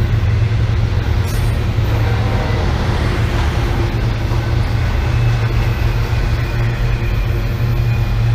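BNSF intermodal freight train running past, a loud, steady rumble.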